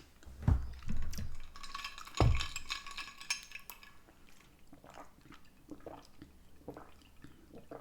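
A person chewing and eating saucy chicken wings, with two dull thumps about half a second and two seconds in, then scattered small clicks and mouth sounds.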